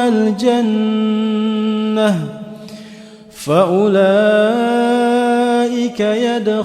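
A voice chanting Qur'an recitation in a melodic style, drawing syllables out into long held notes. About two seconds in, the note slides down and stops for a breath; a new note then rises and is held steady.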